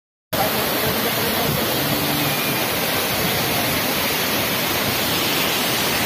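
Steady rushing of a small waterfall pouring onto rocks and into the stream below, an even, unbroken noise. The sound drops out for a moment right at the start.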